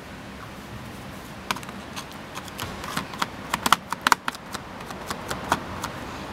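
Irregular light clicks and taps as a piece of scouring sponge is dabbed back and forth into nail polish on a clear plastic Pringles lid. The tapping starts about a second and a half in and is thickest in the middle.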